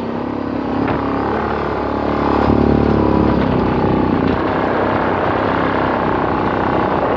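An engine running steadily with a low drone, getting a little louder about two and a half seconds in.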